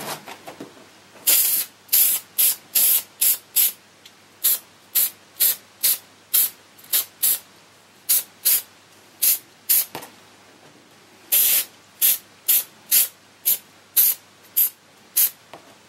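Aerosol can of 3M 90 contact spray adhesive spraying in short hissing bursts, about two a second, with a pause of a second or so partway through.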